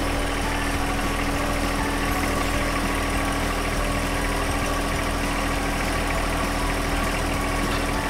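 John Deere backhoe loader's diesel engine running steadily, with a steady high tone over it, while the hydraulic stabilizer legs are raised.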